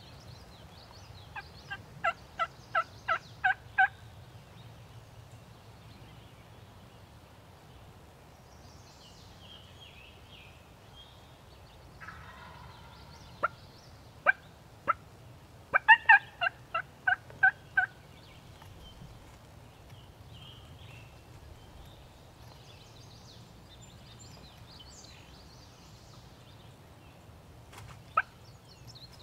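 Wild turkey yelping: a run of about eight evenly spaced yelps, a second, longer run several seconds later, and a single yelp near the end.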